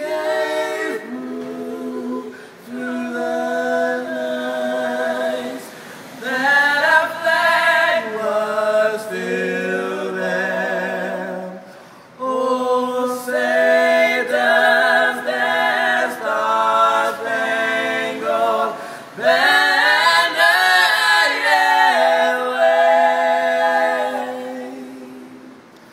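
A small a cappella vocal group singing in harmony without instruments: held chords in phrases, with short breaks for breath between them.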